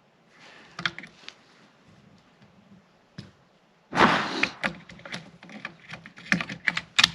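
Ruger 10/22 rifle's bolt and magazine being worked by hand: a few sharp metallic clicks, then a busy run of clicks and clacks from about four seconds in, as a feeding malfunction is cleared.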